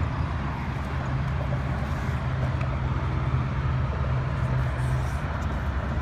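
A motor vehicle engine running with a steady low hum over traffic noise; the hum eases off about five seconds in.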